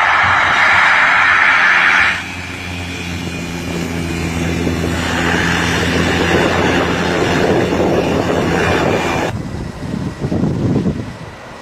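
Light aircraft's engine running with a steady hum, broken by two abrupt changes in sound about two and nine seconds in. Gusty wind noise follows near the end.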